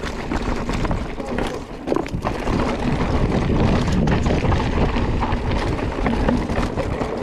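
Mountain bike rolling fast over a rocky trail: steady tyre noise with scattered knocks and rattles from the bike hitting rocks, and wind buffeting the microphone.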